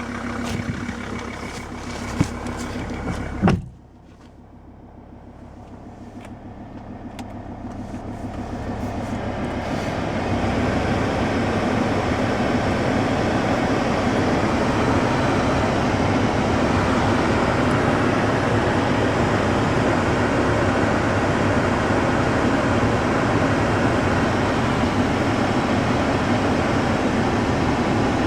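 Mercedes-Benz W211 car running, with a few clicks and a sharp thud about three and a half seconds in, after which the level drops suddenly. A steady rushing noise then builds over about six seconds and holds.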